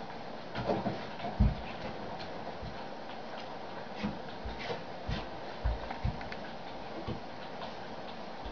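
Irregular soft thumps and taps of a baby's hands and feet on a wooden climbing wall and its holds, over a steady hiss.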